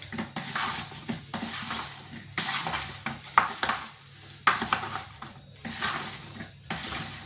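A utensil stirring seasoned, oiled potato chunks in a bowl, scraping against the dish in repeated strokes about once a second.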